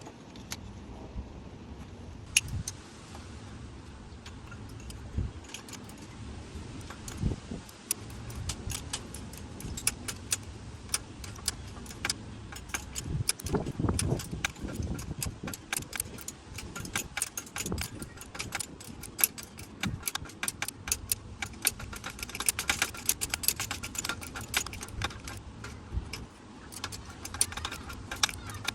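Irregular metallic clicks and clinks of hand tools and small metal parts being handled during engine work, coming thick and fast near the end.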